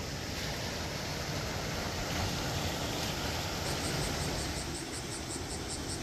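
Seashore ambience: a steady wash of surf and wind. About two-thirds of the way in, a high-pitched insect chirping starts, about four or five pulses a second.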